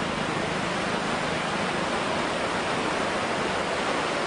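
The Godavari river in flood, fast and turbulent, rushing with a steady, dense noise of churning water.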